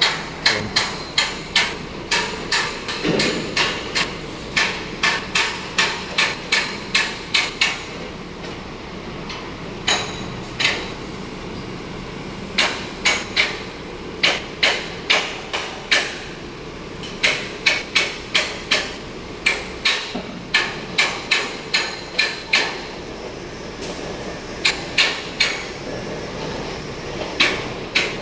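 Hammer blows from construction work, struck in quick runs of about two to three a second with short pauses between runs, each blow ringing sharply.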